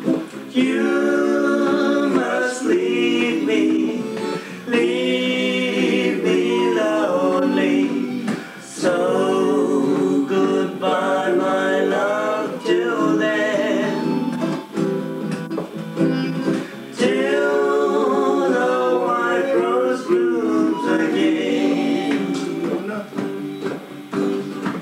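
Informal group music: voices singing along to a strummed nylon-string acoustic guitar, with a harmonica playing, in phrases of a few seconds each.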